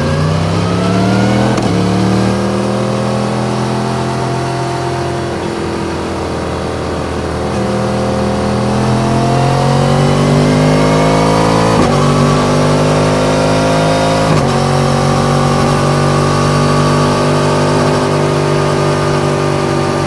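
Yamaha MT-10's crossplane inline-four accelerating hard through the gears, its pitch climbing and then dropping sharply at each of three quick upshifts. It eases off once in between, then settles into a steady high-speed cruise, with a constant rush of wind.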